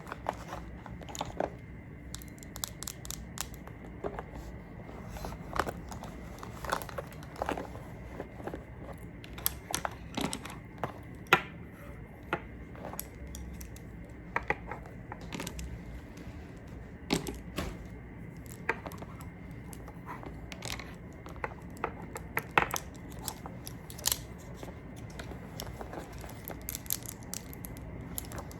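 Close-miked makeup ASMR: irregular light clicks and taps from makeup tools and containers being handled, with a sharper click about eleven seconds in, over a faint steady high hum.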